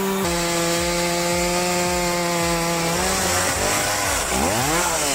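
Chainsaw engine running at a steady high pitch. About three seconds in the pitch starts to waver, then dips and climbs again near the end.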